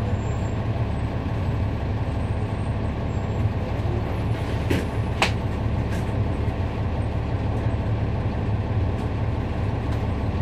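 NABI 40-SFW transit bus with a Cummins ISL9 inline-six diesel running steadily with a low drone. Two sharp clicks come about halfway through.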